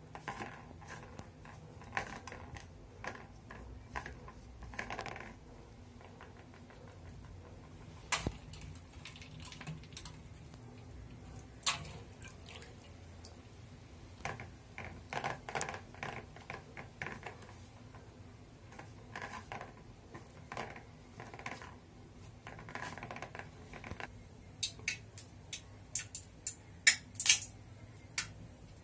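Hands dredging chicken pieces in flour and dipping them in ice water in steel dishes: soft rustling handling noise with scattered clicks and clinks of the steel plate and bowl, several sharper clinks near the end.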